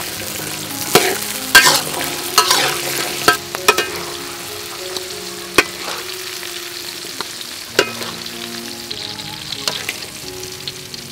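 Metal spatula scraping and clanking against a metal wok while garlic, shallots, chillies and green peas stir-fry, over a steady sizzle. The scrapes come at irregular moments, thickest in the first four seconds.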